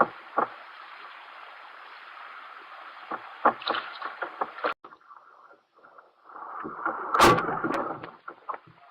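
Scattered knocks and clicks of handling in a plastic kayak, muffled by an action camera's waterproof case, over a steady hiss that drops away near the middle; about seven seconds in comes a louder, longer thump and rustle.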